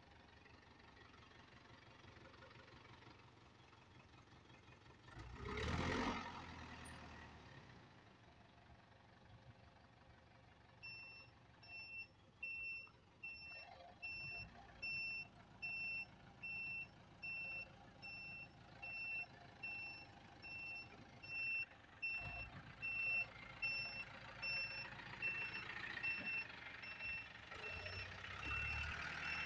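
A truck's reversing alarm beeping at a steady even pace, starting about eleven seconds in, over the low running of a diesel engine. A single loud whoosh comes about five seconds in.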